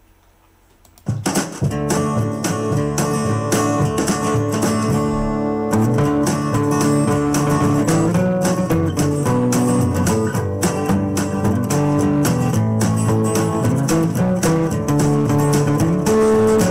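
Instrumental music led by strummed guitar with a steady beat, coming in about a second in after near silence.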